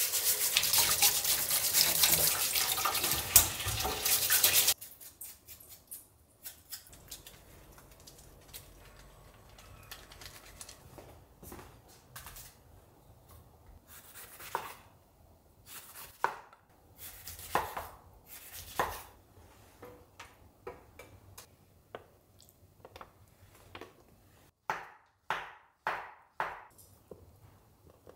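Kitchen tap running steadily for about five seconds, then shut off. Quiet scattered clinks and knocks of kitchen work follow, with a quick run of about five sharp knocks near the end.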